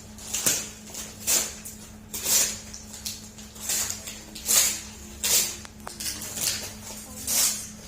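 Gift wrapping being torn and rustled open: a series of short crackling rips, about one a second, over a faint steady hum.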